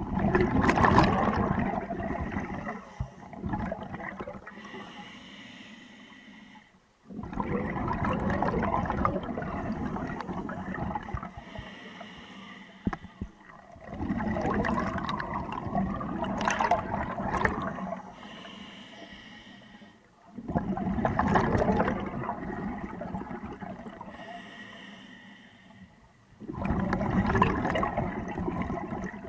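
Scuba diver breathing through a regulator underwater: about every six or seven seconds a loud rush of exhaled bubbles starts suddenly and fades, five times in all, with quieter inhalations between.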